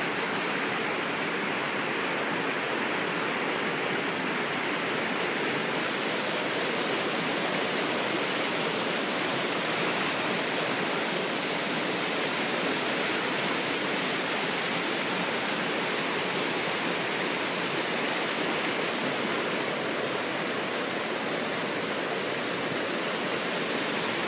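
Whitewater river rapids rushing over boulders: a steady, unbroken rush of water.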